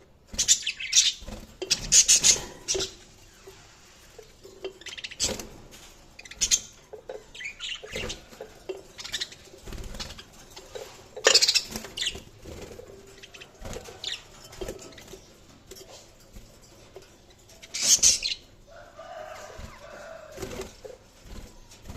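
Budgerigars chirping and chattering, with loud short bursts at irregular intervals and a softer warbling stretch near the end.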